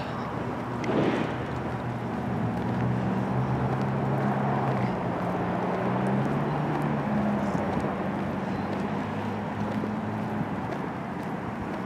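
A motor vehicle's engine running, a low hum that shifts pitch a few times from about two seconds in and dies away near the end, over steady outdoor background noise.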